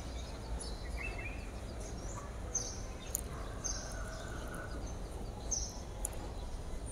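Salted water at a rolling boil in a pan on the stove makes a low, steady bubbling hiss. Rice flour is tipped into it partway through. A few faint, short high chirps sound over it.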